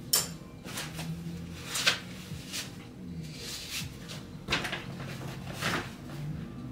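Several short rustles and knocks of items being handled and packed into a large shopping bag.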